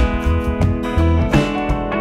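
Background music led by acoustic guitar, with regular plucked or strummed notes over a bass line.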